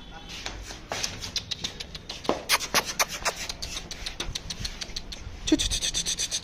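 Tibetan mastiff puppies' claws clicking on ceramic floor tiles as they walk. A quick, irregular patter of sharp clicks that grows denser and louder near the end.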